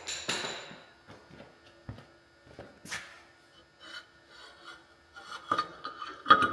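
Metal cylinder sleeve being worked loose and slid out of a Caterpillar D4600 engine block by hand: a scrape at the start, scattered rubs and light knocks, then sharp metal clinks with a brief ring near the end.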